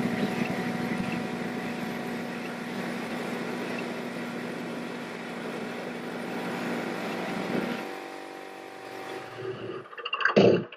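A small engine running steadily, driving the fan contraption, then dying away about eight seconds in. A short loud burst of sound comes near the end.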